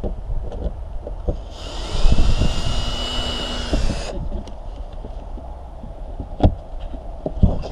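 Cordless drill with a long screwdriver bit spinning up to a steady whine and running for about two and a half seconds while removing an interior trim screw, then stopping. Two sharp knocks follow near the end.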